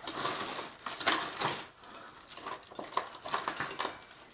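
Metal scraping and clattering as an oven door's hinges are worked and forced by hand, in irregular bursts.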